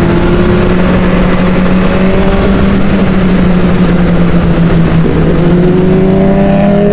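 Honda CB600's 600 cc inline-four engine pulling under acceleration while riding, its pitch climbing steadily, with a short break about five seconds in before it climbs again, over heavy wind rush on a helmet microphone.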